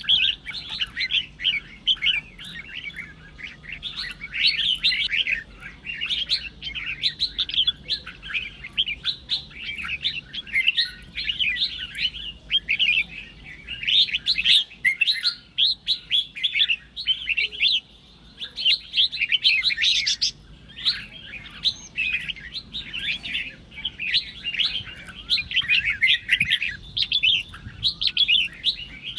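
Red-whiskered bulbuls singing: quick, loud chirping phrases follow one another almost without a break, with a short lull about eighteen seconds in.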